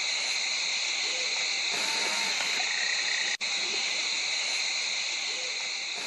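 Dense, steady night insect chorus, a high hiss layered in several bands, which drops out for an instant about three and a half seconds in and fades slightly near the end.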